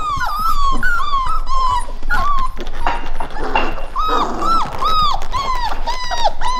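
Labrador puppies whimpering and whining in a rapid string of short, high cries, each rising then falling in pitch, with a brief lull about halfway. The puppies are nervous at their first climb over an obstacle, a rolled-up rug.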